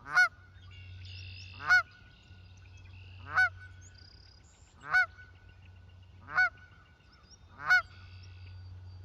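Canada goose honking repeatedly, six loud single honks about every second and a half, like an alarm: a goose upset at a person close to its nesting grass. A low steady hum and faint calls of other birds lie underneath.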